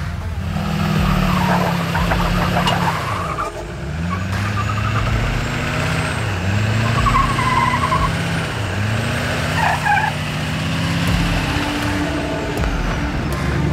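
Lifted GMC Sierra pickup's engine revving in repeated throttle surges as it crawls up a rock ledge, the pitch rising, holding and dropping about four times.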